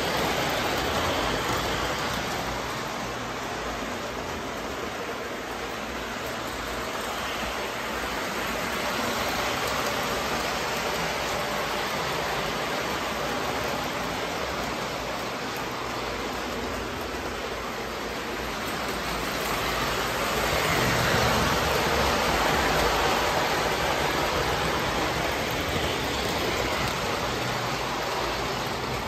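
Standard gauge model Daylight passenger train running on three-rail tinplate track: a steady noise of motor and wheels, swelling louder for a few seconds about two-thirds of the way through, then easing.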